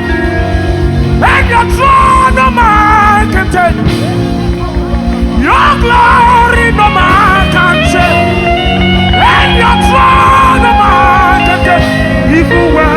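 Gospel worship band music played between sung lines, with a fast steady beat in the bass and a wavering lead melody line, rising in pitch in short swoops about every four seconds.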